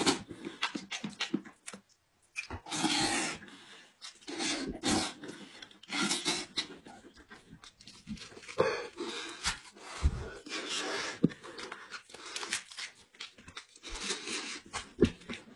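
Close-up mukbang eating sounds: a man chewing and smacking on goat-head meat, with heavy panting breaths in irregular bursts between mouthfuls and a few sharp wet clicks.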